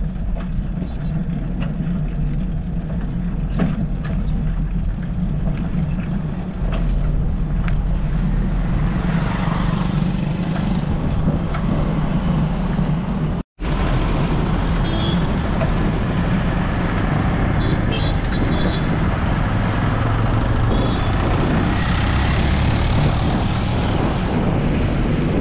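Steady rumble of wind and road noise from riding along a road, with vehicle traffic. The sound cuts out for an instant about halfway through.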